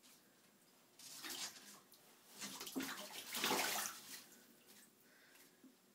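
Baby alligator splashing in a bathtub as it thrashes with a mouse in its jaws: a short burst about a second in, then a longer, louder burst from about two and a half to four seconds in.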